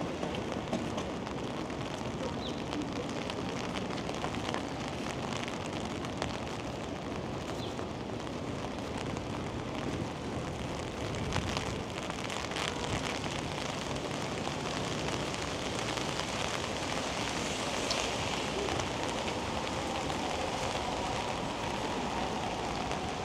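Steady rain falling on a city street: an even hiss, with a few faint ticks from drops.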